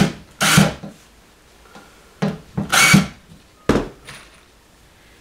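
Power drill driving screws through drywall into a wooden backing board in about four short bursts, stopping about four seconds in.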